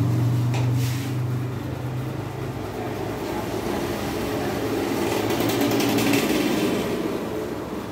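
Motor vehicle engine noise from nearby traffic: a low drone that fades after about two and a half seconds, then swells again, rougher, near six seconds.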